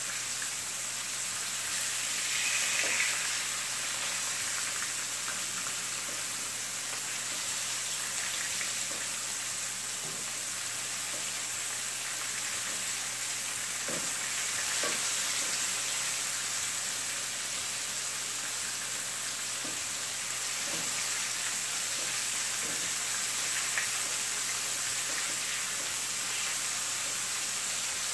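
Pieces of butterfish shallow-frying in hot oil in a nonstick skillet: a steady sizzle, with a few light taps and scrapes of the spatula against the pan as the pieces are turned.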